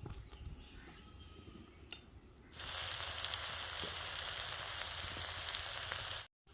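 Food frying in hot oil: quiet with faint crackles at first, then a loud, steady sizzle starts about two and a half seconds in and cuts off suddenly near the end.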